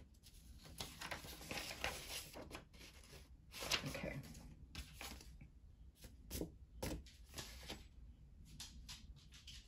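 Paper and card stock rustling as sheets and cards are handled, with a few short soft taps about two-thirds of the way through.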